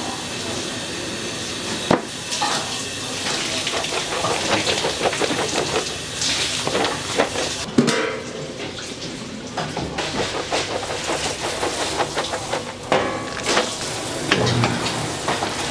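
Food-preparation sounds in a sundae kitchen: liquid sloshing and utensils and pots clattering, with sharp knocks about two seconds and eight seconds in.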